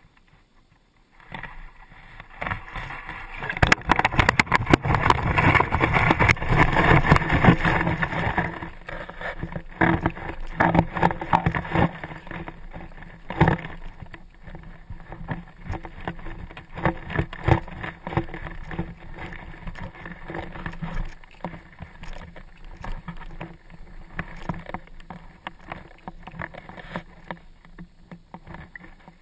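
Water splashing loudly as a blue catfish is netted and hauled out, then crunching and clattering over a rocky riverbank with many sharp knocks as the landing net and its catch are carried up and set down.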